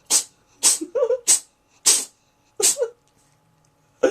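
A cat sneezing over and over in a rapid fit: short sharp sneezes about every half second, five in a row, then a pause of about a second before another.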